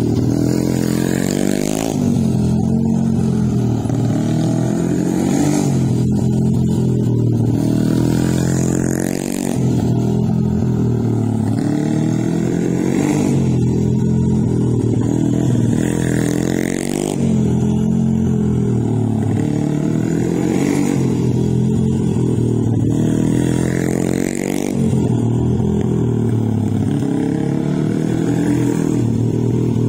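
Small mini GP motorcycle engine revving up and easing off again and again, about every two to three seconds, as the bike accelerates and slows through tight turns.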